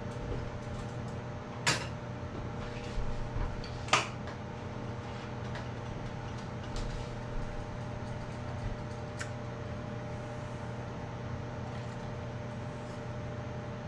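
Kitchen clatter: a few sharp clanks and clinks as a metal pot and a glass measuring cup are handled at the stove, the loudest about two and four seconds in, over a steady low hum.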